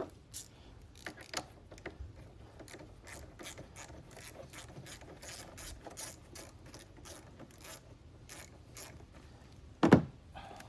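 Ratchet wrench clicking as it loosens the nut on the negative battery terminal clamp, in an uneven run of short clicks about two or three a second. A single loud clunk comes near the end.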